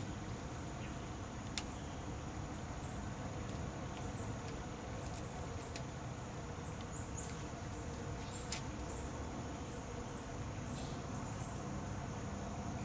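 Insects trilling steadily in a high band, with small repeating chirps, and two light clicks about a second and a half and eight and a half seconds in as an arrow is handled and nocked on a compound bow.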